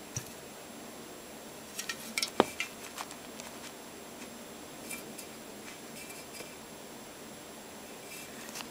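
Light knocks and clinks from drink cans, bottles and packaging being handled, a cluster of them about two to three seconds in and a few faint ticks later, over a low room background.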